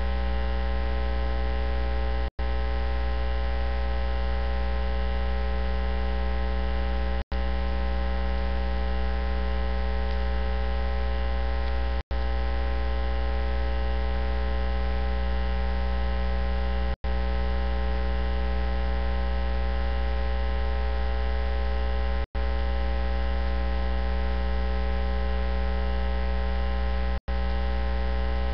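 Loud, steady electrical mains hum, a low buzz with a long stack of overtones and no speech coming through it. It cuts out for an instant about every five seconds. It is a fault in the audio feed, drowning out the sermon being preached.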